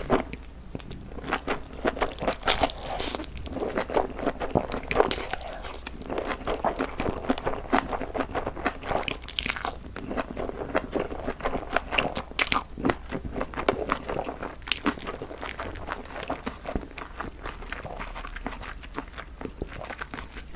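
A person chewing and biting crunchy food close to the microphone, with a dense, irregular run of crisp crackles and crunches.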